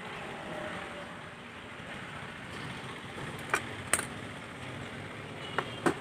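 Small sharp clicks of metal tweezers against the plastic and circuit board of a phone as its charging-port sub-board is pried loose and lifted out: two clicks a little past halfway, and two more close together near the end. A steady background noise runs beneath them.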